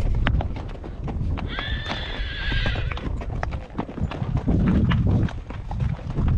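Ridden horses' hooves clip-clopping throughout, with a horse whinnying for about a second and a half, starting about a second and a half in.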